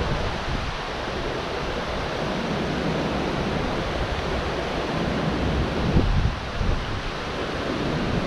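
Steady rush of water pouring over a dam spillway, with wind buffeting the microphone in low gusts, strongest about six seconds in.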